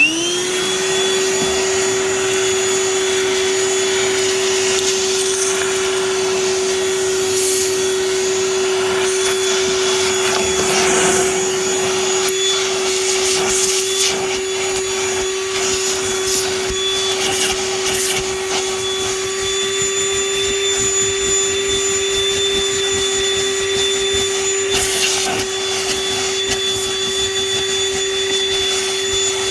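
Hart 20-volt cordless 2-gallon wet/dry vacuum switched on, its motor spinning up within the first second to a steady hum and whine. It runs continuously as it sucks up dirt from a car interior, with brief hissing rattles of debris going up the hose.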